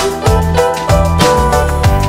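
Upbeat background music with a steady beat, bass notes and bright plucked or chiming tones.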